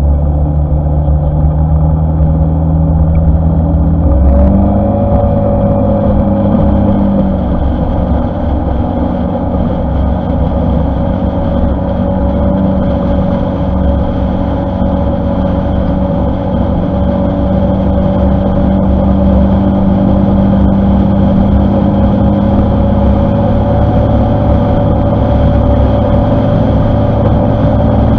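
Honda ADV150 scooter's single-cylinder engine running at cruising speed. Its note rises about four seconds in, then holds steady.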